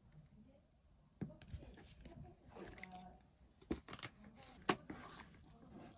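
Slime being handled by hand, squished and pressed, with soft sticky crackles and a few sharp pops.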